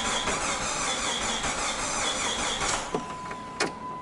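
Starter cranking the Jeep Grand Cherokee's 4.0-litre straight-six, which turns over without firing and stops about three seconds in: a no-start caused by a failed crankshaft position sensor. After the cranking a steady, high electronic warning chime tone sounds, with a couple of light clicks.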